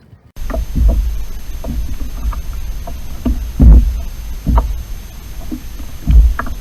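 Loud low rumble with irregular thumps about once or twice a second, typical of wind buffeting the microphone on a small boat under way. It starts abruptly just after the beginning.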